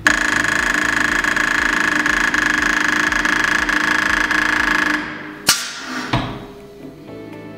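Dot-peen needle marking head (Markator MV5 needle marker) stamping text into a metal plate: a steady, rapid rattling buzz of needle strikes that stops about five seconds in. About half a second later comes a sharp click and a short falling whoosh.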